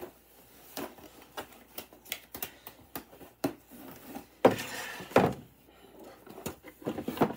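Objects being handled and fitted into a bamboo wooden storage box: scattered small clicks and knocks, with a louder scraping thud about four and a half seconds in, another just after it, and a few more knocks near the end.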